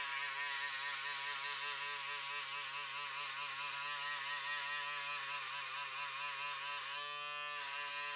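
Background music: a sustained melodic line with wavering vibrato over a low steady drone, shifting pitch once near the end.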